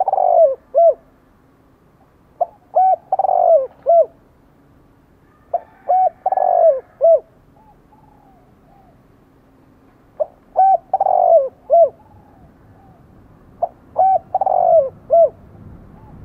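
Spotted dove cooing in repeated song phrases, each a few short coos around one longer, drawn-out coo that falls in pitch, coming every three to five seconds. This is the spirited decoy cooing used to provoke wild males.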